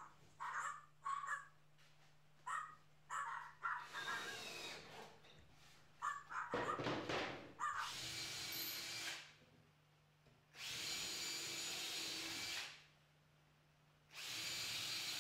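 Cordless drill-driver driving screws to fasten cedar siding boards to the roof, in three steady runs of about two seconds each, starting about six and a half seconds in. Before that comes a series of short, sharp sounds.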